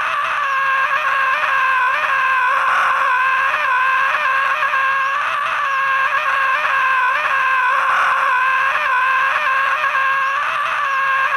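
A cartoon sun character screaming: one long, loud, unbroken scream whose pitch wavers up and down about once a second, cutting off suddenly at the end.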